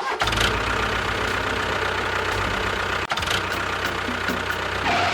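An engine running steadily, with a brief drop-out just after three seconds in.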